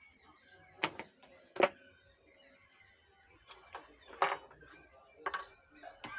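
Sharp clicks and knocks of tools and parts being handled on a workbench during soldering work, about seven irregular strikes over a faint background.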